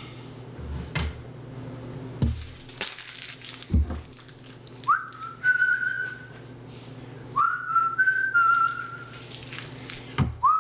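A person whistling three short phrases from about five seconds in, each starting with a quick upward slide and then holding or stepping between two close notes. Before that, a few dull knocks of kitchenware.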